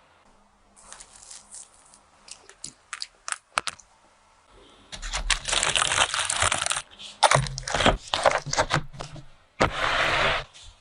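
A run of sharp clicks and taps, then bursts of crinkling, crackling noise about five seconds in and again near the end.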